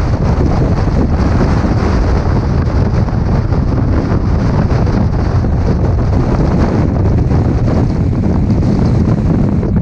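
Strong wind buffeting the microphone: a loud, steady, unbroken noise heaviest in the low end.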